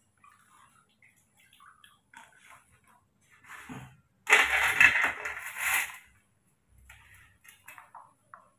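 Rustling, crinkling handling noise. A loud crinkle lasts about two seconds in the middle, with fainter scattered rustles before and after it.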